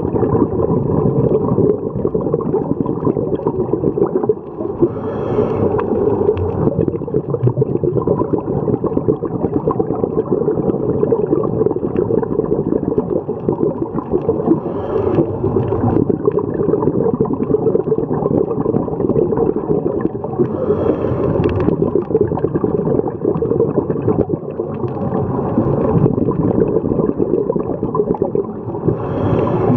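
Muffled underwater rumble and water noise as heard through a waterproof camera's sealed body. Every six to ten seconds a scuba diver's exhaled bubbles gurgle past in a short burst.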